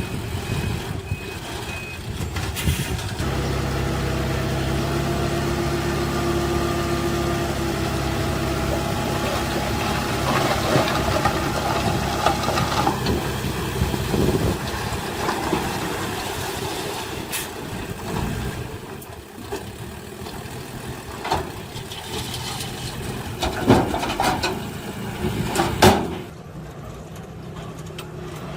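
Dump truck backing up with its reversing alarm beeping three times. Its diesel engine then runs steadily at raised revs for about ten seconds and eases off. Several sharp clanks follow toward the end.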